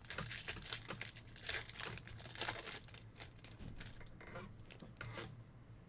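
Trading cards and their foil pack wrapper being handled: a dense, irregular run of crinkling, rustling and small flicks as the pack is opened and the cards flipped through.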